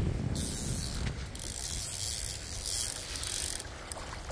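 Fishing reel being cranked against a hooked fish, its gears giving a ratcheting whir that runs in spells, with a short break about a second in, and stops shortly before the end.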